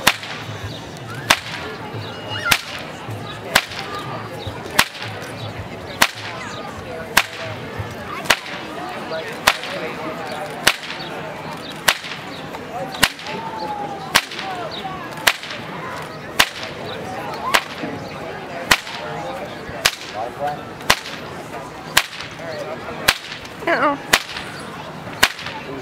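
A whip cracking in a steady rhythm, one sharp crack about every 1.2 seconds, some twenty in a row, each crack cutting a flower held in a partner's mouth. Faint crowd chatter runs underneath.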